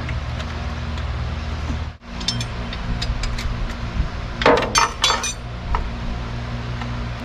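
Hand tools clinking on metal while the distributor hold-down on a small-block Chevy 350 is loosened. A few light clicks come first, then a cluster of louder clinks about four and a half seconds in, over a steady low hum.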